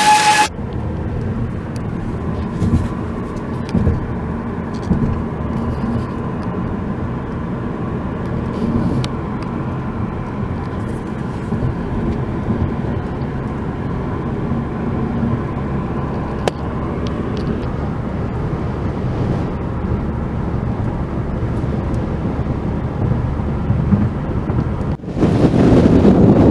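Steady road and engine noise of a car being driven, with a few faint ticks. Near the end it cuts abruptly to louder wind noise on the microphone.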